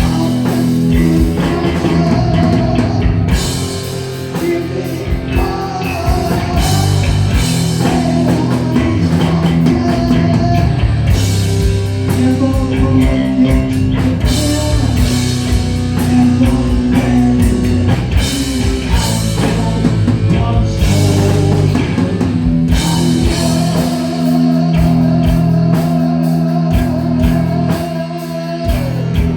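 Heavy metal band playing live: distorted electric guitars, bass and a pounding drum kit, loud and continuous, with a long held high note near the end.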